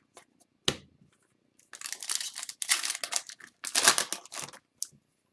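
Foil wrapper of a hockey card pack crinkling and tearing as it is handled and opened, with a sharp click a little under a second in, then three stretches of crinkling between about two and four and a half seconds in.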